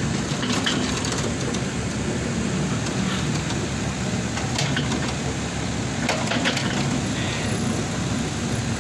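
Excavator engine running steadily, with a few short clicks and knocks over it.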